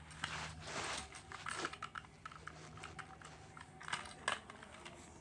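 Plastic toy train engines being handled: irregular small clicks, taps and rustles as the models are picked up and turned over, over a faint steady hum.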